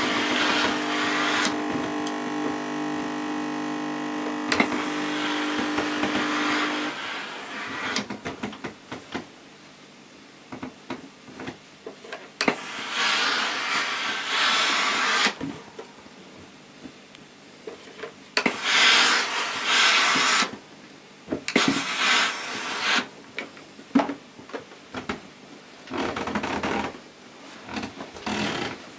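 Tefal Effectis GV6720 steam generator iron in use: steam hissing from the soleplate over a steady hum from the base for the first several seconds. Later come several shorter bursts of steam, and the iron knocks lightly against the ironing board as it is pushed over a towel.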